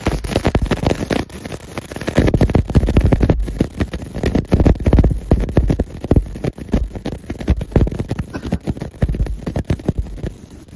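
60 W pulsed fiber laser marking machine cutting through 0.15 mm stainless steel sheet: a loud, dense, irregular crackle as the beam ablates the metal, with a low rumble underneath.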